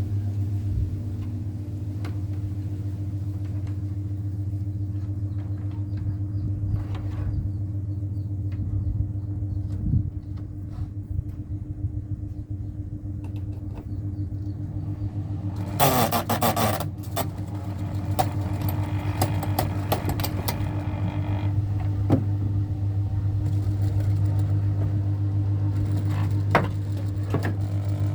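Ceiling fan running, its motor giving a steady low hum. A brief louder noise breaks in about sixteen seconds in.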